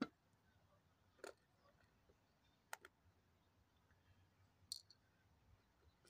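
Four faint, sharp clicks a second or two apart: metal tweezers and small gold nuggets tapping on a digital pocket scale's plastic weighing pan.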